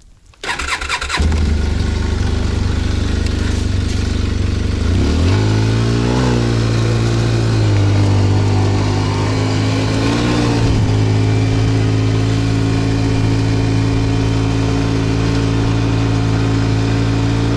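Small engine of a motor-dog (motosobaka) snow tow sled starting: a few clicks, then it catches about a second in and runs steadily. The engine speed rises and falls twice, around five and ten seconds in, before it settles into an even run.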